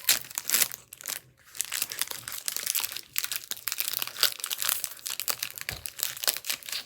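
Foil Pokémon booster pack wrapper crinkling and tearing as it is handled and opened, in a dense run of irregular crackles.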